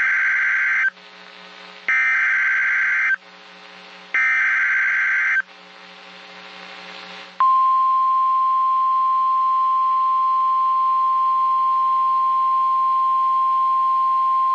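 NOAA Weather Radio Emergency Alert System signal: short data bursts of the SAME alert header, three in all about a second apart, the first already under way. About halfway in, the steady single-pitched 1050 Hz weather radio warning alarm tone starts and holds. It is the signal that a new warning message follows.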